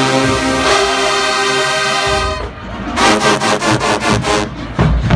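A large marching band's brass section holds a loud chord for about two seconds and breaks off. It then comes back in with short punchy hits over drums and heavy low brass.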